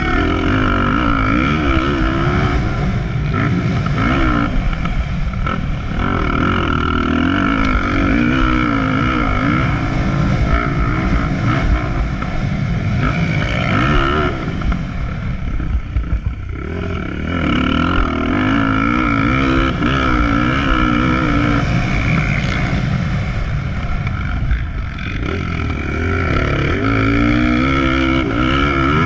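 Motocross dirt bike engine heard from on the bike, revving up and dropping back again and again with throttle and gear changes as it rides the dirt track, with short dips off the throttle about halfway and near the end.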